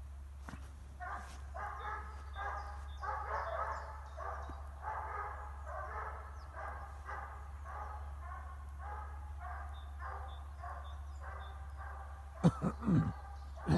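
A hound baying on a hare's trail, a long steady run of calls at about two a second. Near the end a few loud knocks close to the microphone.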